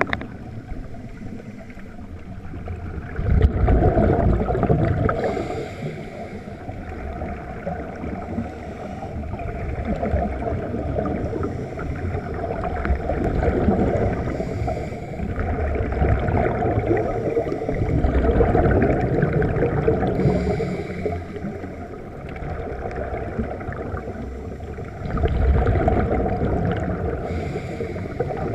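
Scuba divers breathing through their regulators, heard underwater: exhaled bubbles gurgle and rumble in loud surges every few seconds, with a short hiss between some of them.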